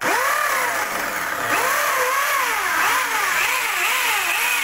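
Electric hammer drill boring a hole into the wall in hammer mode. It starts at once at full speed, and its pitch dips and recovers over and over as it is pushed into the wall.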